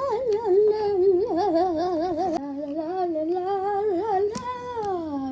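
High-pitched wordless humming of a made-up tune, wavering with vibrato, ending in a long downward slide in pitch.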